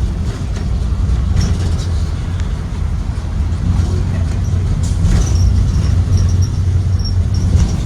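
Cabin noise of a moving Blue Bird Vision school bus: a steady low rumble from its Ford 7.3-litre V8 and the road, with scattered rattles and clicks and faint high squeaks in the second half.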